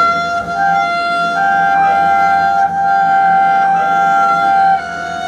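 Solo double bass bowed in long, high, sustained tones, two pitches sounding together. The upper pitch shifts about a second and a half in and holds until it drops away near the end.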